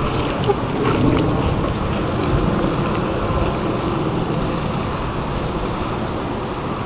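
Wind buffeting the microphone: a steady, even rumble of noise with no distinct events.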